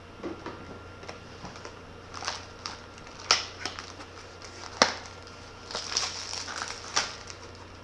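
Plastic packaging and small plastic parts being handled: scattered sharp clicks and taps, with a stretch of crinkling near the middle, as the kit's wall adapter charger is taken out of its packaging.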